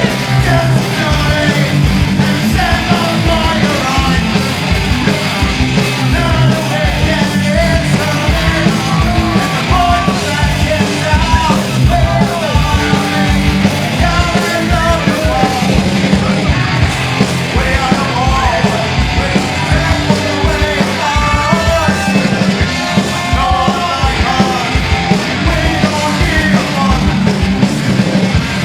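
Punk band playing live: fast drumming under a full, loud band sound, with shouted singing.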